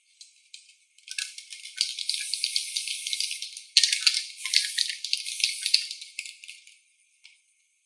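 Dense, fast rattling in two spells of roughly three seconds each, with a short break between them, heard thin with the low end cut away.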